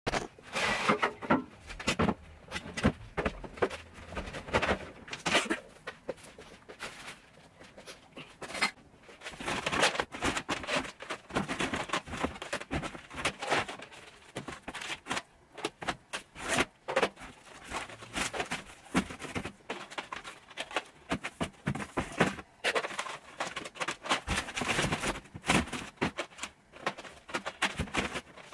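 Plastic DVD cases clicking and clattering as they are handled and stacked into a cardboard box, with irregular knocks and rustling of clutter being moved.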